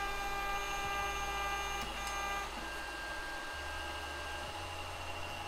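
Stepper motors of an i3-style 3D printer whining as it auto-homes its axes: a steady multi-tone whine that gives way to a single steady tone a little before halfway, stopping about a second before the end.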